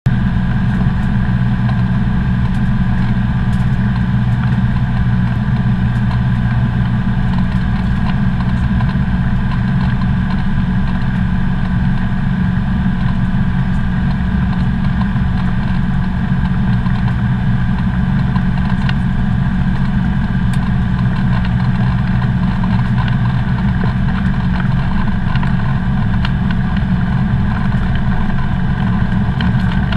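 Comco Ikarus C42B ultralight's propeller engine running steadily, heard from inside the cockpit.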